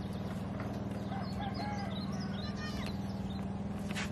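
A steady low motor drone, with several short high chirping bird calls over it between about one and three seconds in, and a sharp click near the end.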